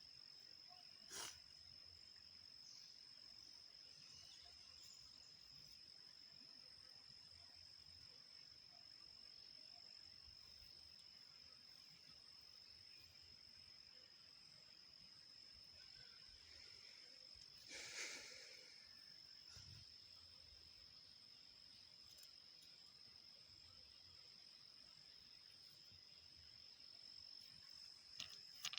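Faint, steady, high-pitched trill of crickets, unbroken throughout, with a single sharp click about a second in and a brief rustling knock about two-thirds of the way through.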